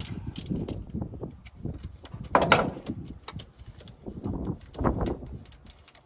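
Hand tools at work on spark plugs: irregular clicks and metallic knocks of a ratchet and socket and the plugs being handled, with a louder clatter about two and a half seconds in and another near five seconds.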